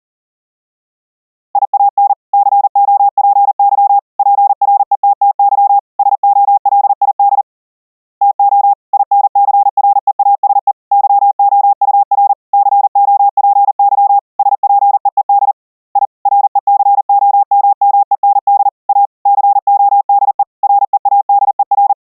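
Morse code (CW) at high speed: a single steady-pitched sine-wave tone keyed rapidly on and off into dots and dashes, starting about a second and a half in, with two short pauses between groups.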